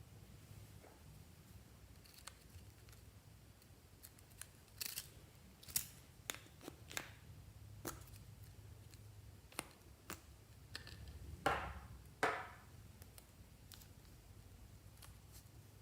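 Fluffy slime being worked by hand: scattered sticky clicks and pops, with two longer crackles about three quarters of the way through.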